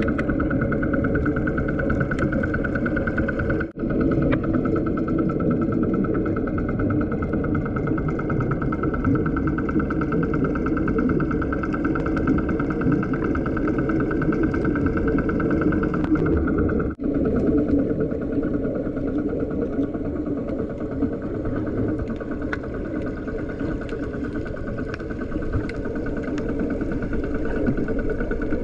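Steady engine drone heard underwater, muffled by the water, with faint clicks and crackles over it. It drops out briefly twice.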